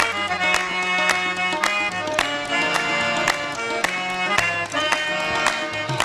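Background music: held melodic notes over a steady drum beat, struck about twice a second.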